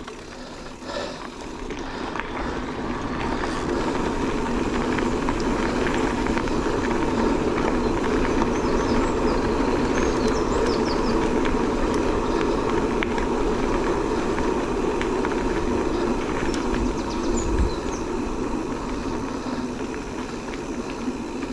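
Electric mountain bike riding noise: tyres rolling on the trail and wind on the camera microphone, building over the first several seconds as the bike gathers speed, then holding steady.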